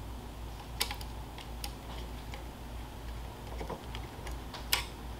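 Scattered light metal clicks and ticks as a binocular head is loosened and worked free from an Olympus BX microscope's dual-head bridge, with a sharper click about a second in and another near the end.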